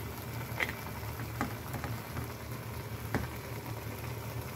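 Mushrooms, bamboo shoots and soy sauce sizzling and bubbling steadily in an enamelled pot, with a few light knocks as a wooden spatula stirs against the pot.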